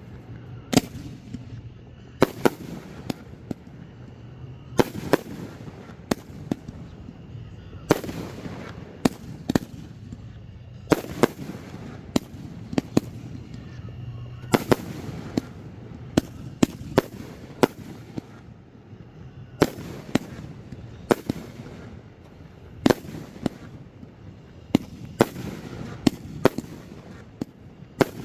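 Aerial fireworks shells bursting one after another, sharp reports about one to two a second, some trailing into a longer rumbling echo.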